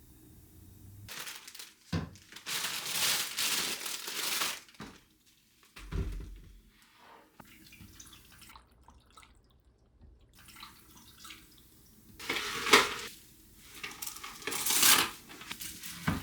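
Kitchen tap water running into a sink in two spells of a few seconds each, with a few knocks of dishes in between.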